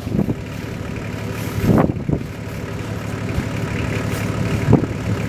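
Steady deep rumble of the erupting Eyjafjallajökull volcano's ash column, with a few brief louder surges.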